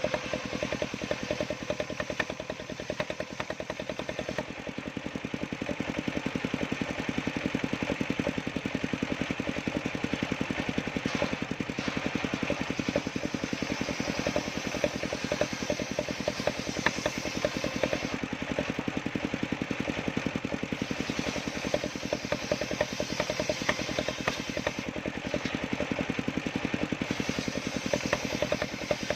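Homemade sawmill's engine running steadily at an even firing rhythm, with a light clatter over it.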